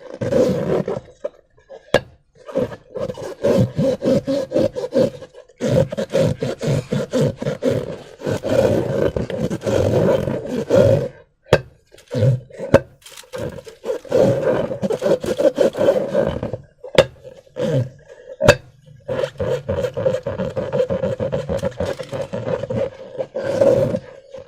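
Slime and rubber balloons being squeezed and rubbed in the hands: a dense crackling, squishing texture that comes in stretches of a few seconds with short pauses between, and a few sharp clicks.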